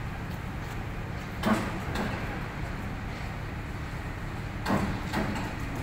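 Steady low hum of the davit hoist as a rigid inflatable rescue boat hangs from it, broken by a few short knocks and clanks, two about a second and a half in and two near the end.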